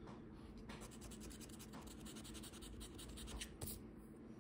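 Faint scratching of a Loteria scratch-off lottery ticket, quick rubbing strokes one after another as the coating is scraped off, with a few harder strokes about three and a half seconds in.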